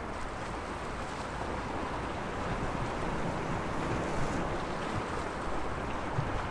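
Sea waves washing against the shore in a steady, even wash.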